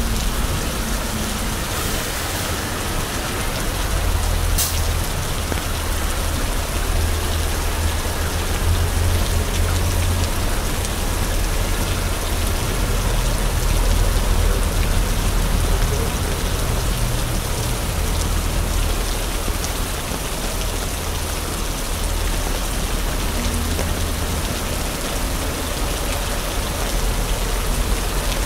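Steady heavy rain falling and splashing on a wet city street, over a low rumble that swells and eases. One sharp click about five seconds in.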